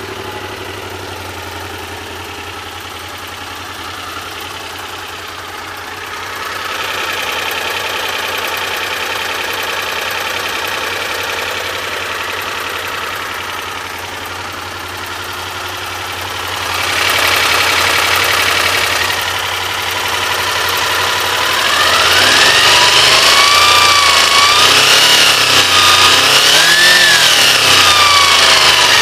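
Honda VFR400 NC21's V4 engine running, at first at a steady idle, then revved up and down several times over the last several seconds. The engine has a knock that the owner calls weird.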